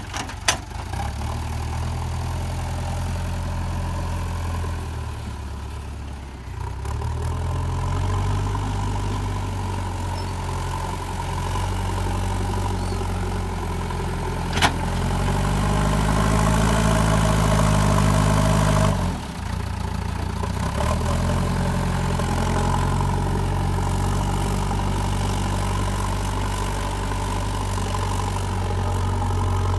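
Diesel engine of a JCB 3DX backhoe loader running, its revs shifting a little. About halfway through it revs up and holds for a few seconds, then drops back sharply to a steady run. There is a single sharp click just before the rev-up.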